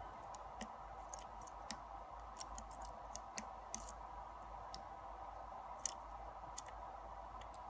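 Faint, irregular small metallic clicks from a steel lock pick and tension wrench working the pins inside a brass Yale pin-tumbler cylinder during single-pin picking.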